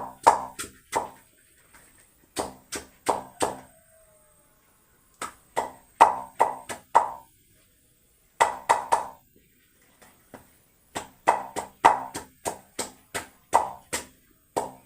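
Knife chopping vegetables and fruit for cattle feed on a board, in quick runs of sharp strokes, about three to four a second, with short pauses between runs.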